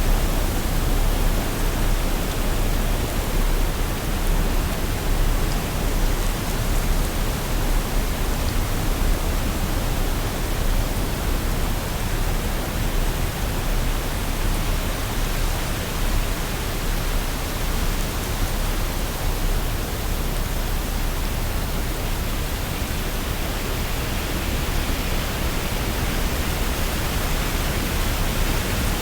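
Waterfall: water pouring and splashing in a steady, even rush with a deep rumble underneath.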